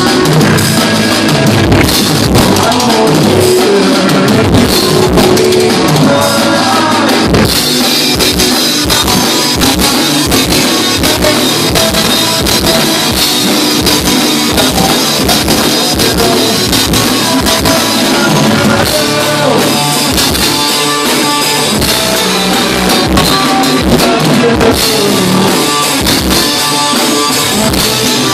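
Live rock band playing a song: a steady drum-kit beat with guitar and bass, loud and unbroken.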